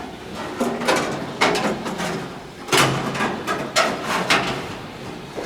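Tools and parts being handled: a run of irregular knocks and clatter, several sharp ones spaced about half a second apart.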